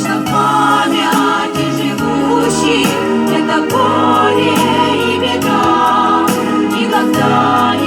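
Vocal ensemble singing a song in several voices, with long held notes.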